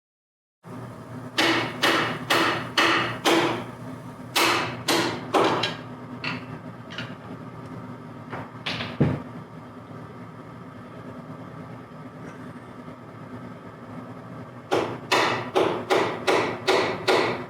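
A hammer tapping a piston down through a ring compressor into a big-block cylinder bore: groups of sharp taps a little under half a second apart, a heavier thump about nine seconds in, then a pause before a quicker run of taps near the end.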